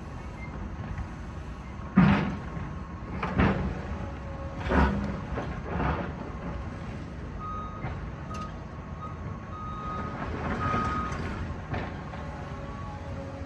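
Demolition machinery at work: four heavy crashes of debris in the first half over a steady engine rumble, then a backup alarm beeping in the second half.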